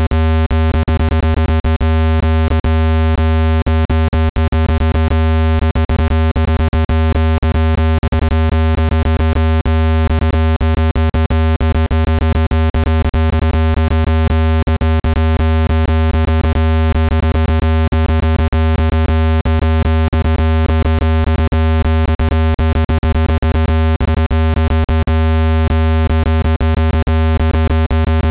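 Synthesized speaker-cleaning tone: a loud, steady low-pitched buzz with many overtones, broken by frequent brief clicks. It is made to vibrate a phone speaker's mesh and shake out trapped dust.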